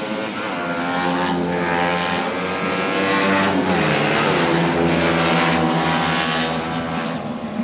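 Several small 70cc racing motorcycle engines running at high revs as the bikes go by, the sound of a few engines overlapping. About halfway through one passes close, getting louder and then dropping in pitch as it goes past.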